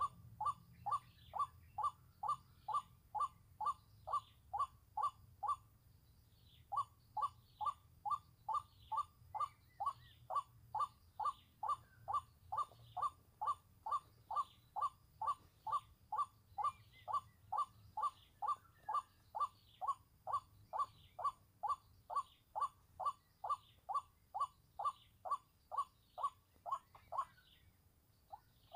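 White-breasted waterhen call, a steady, even run of short 'kwak' notes about two a second, played back as a lure. It pauses briefly about six seconds in and stops shortly before the end.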